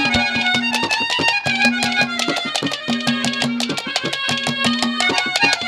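Live Haryanvi ragni band music, instrumental only: a melody over a quick, steady drum beat, with a low note held again and again.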